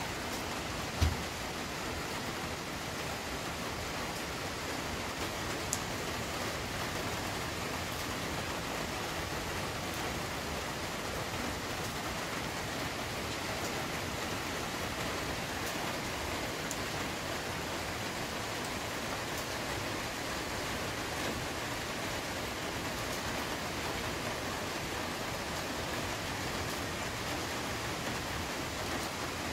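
Steady rain falling, an even wash of noise without change. A single short low thump about a second in.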